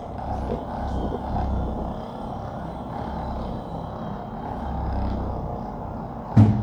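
A steady low rumbling noise, then one sharp crack near the end, the loudest sound: a chiropractic spinal adjustment.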